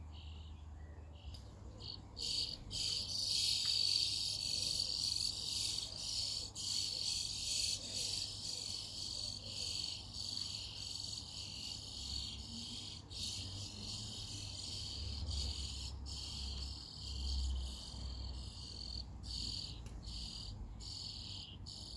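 Nestlings in a nest inside the roof eaves begging as they are fed: a dense, continuous high-pitched chorus of calls that starts from a few separate calls and swells about two seconds in, with short breaks now and then.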